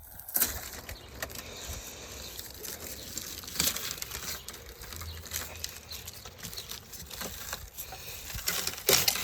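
Hands handling material: irregular crinkling and scraping with sharp clicks, a loud one about half a second in and a cluster near the end.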